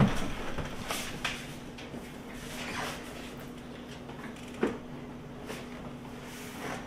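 A heavy thump as a GE portable dishwasher's cabinet is tipped onto the tile floor. Scattered knocks and scrapes follow as it is shifted, with a sharp knock a little before five seconds, all over a faint steady hum.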